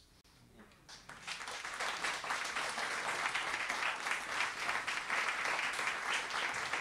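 Audience applauding, starting about a second in and quickly building to steady clapping.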